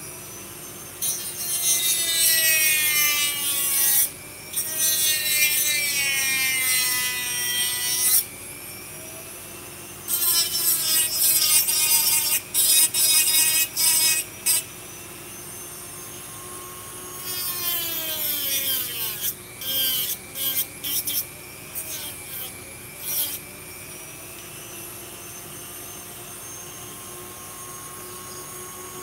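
Dremel rotary tool grinding a plastic blaster part in three runs of several seconds, its high whine sagging in pitch through each run; the last run breaks into short bursts.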